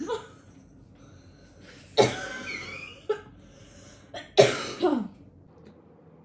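A person coughing in several short, sudden bursts, the loudest about two seconds in and again about four and a half seconds in.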